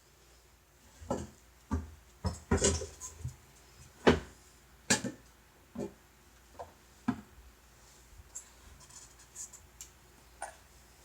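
A kitten moving about inside an empty waste bin: a run of irregular knocks and scratches against its walls, densest in the first half, thinning to faint ticks near the end.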